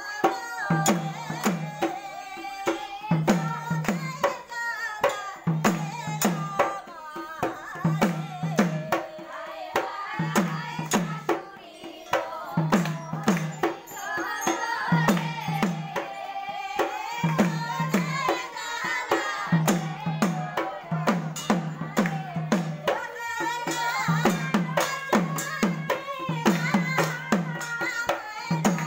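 Sylheti dhamail folk song: a group of women singing together over a dhol, its deep strokes falling in short clusters about every second and a half, with many sharp strikes between them.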